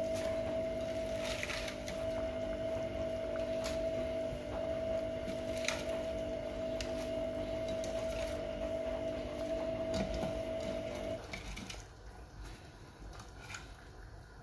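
A steady mechanical hum with one clear high note, which cuts off about eleven seconds in. Over it come the crisp rustles and light knocks of napa cabbage leaves being piled into a steel pot.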